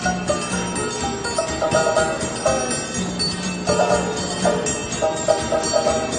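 Music with a bright, repeating melody of short notes over a held low note.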